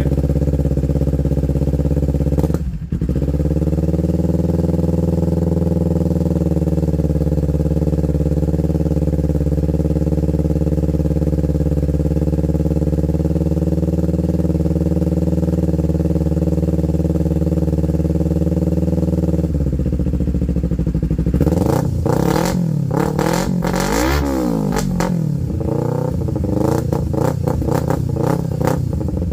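Kawasaki Ninja 250's parallel-twin engine running through an aftermarket slip-on muffler with its silencer insert out. It idles steadily, dips briefly about three seconds in, then from about twenty seconds in is revved up and down in a string of throttle blips, the highest rev a few seconds later.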